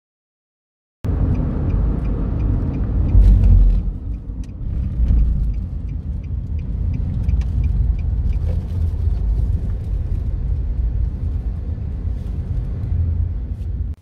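Steady low rumble of a car driving along a road, starting abruptly about a second in.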